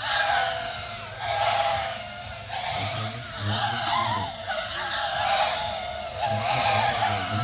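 Racing quadcopters' motors and propellers whining, their pitch wavering up and down as the pilots work the throttle, with the sound swelling every second or so as the drones pass.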